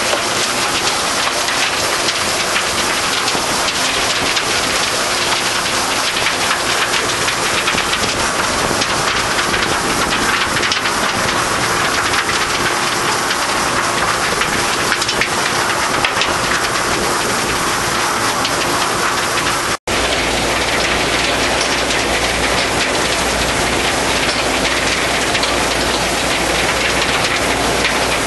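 Soil screening machine running: trommel drum turning, with soil and root debris pouring onto and riding along conveyor belts in a steady, dense rushing noise. About two-thirds of the way through the sound cuts out for an instant and resumes with a deep hum underneath.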